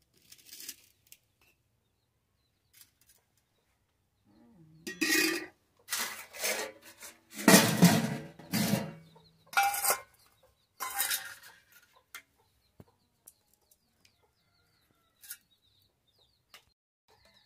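Chickens clucking in a run of loud calls from about five to twelve seconds in, with scattered light clinks of stainless steel plates and bowls being handled.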